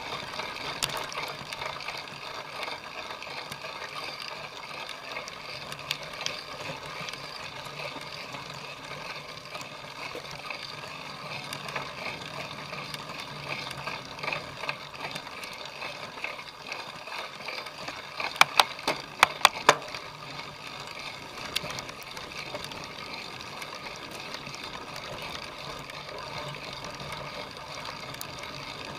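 Cyclocross bike being raced over rough ground: steady tyre and drivetrain noise with rattling. A quick run of sharp clicks comes about eighteen seconds in.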